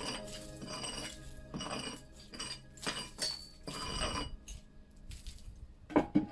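Background music with clinking, percussive strokes that fades out about two-thirds of the way through, followed by a few faint ticks and one loud, sharp knock near the end.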